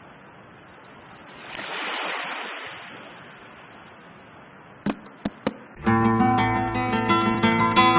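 Soft rushing noise that swells once about two seconds in, then a few sharp clicks, and acoustic guitar music starts about six seconds in, plucked and strummed.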